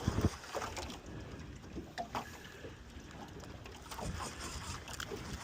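Sounds of a small fishing boat on the water: a low, steady wash of water and wind with scattered knocks and handling noises, a louder thump right at the start.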